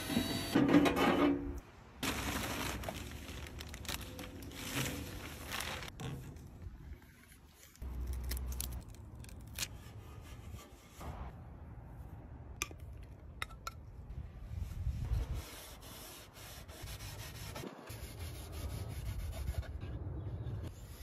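Hands working with adhesive hook-and-loop strips and a wooden board: rubbing, scraping and peeling noises, with cloth wiping over the board. The sounds change abruptly several times.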